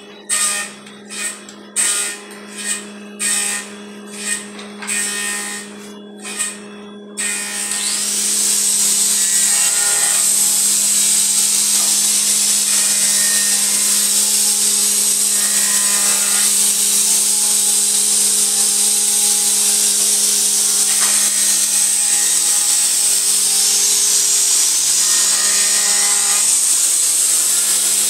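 Handheld power tool working wood: short bursts a little under a second apart for the first seven seconds or so, then the tool runs continuously and loudly. A steady low motor hum lies underneath.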